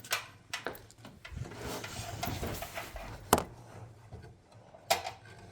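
Hands handling equipment: rubbing and rustling with a few sharp knocks and clicks, the loudest about three seconds in and another near five seconds.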